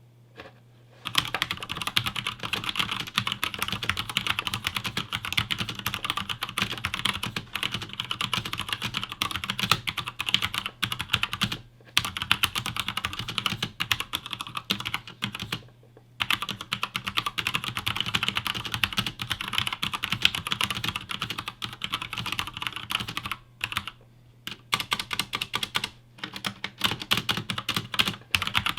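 Fast continuous typing on a mechanical keyboard with Cherry MX Red linear switches and PBT keycaps, a dense run of key clicks broken by a few short pauses.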